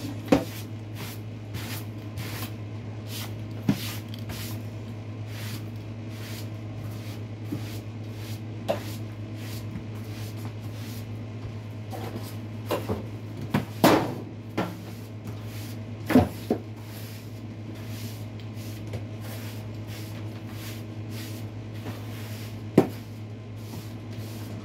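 Steady low household hum under scattered knocks and bangs, a few early on, a cluster a little past halfway and one sharp bang near the end.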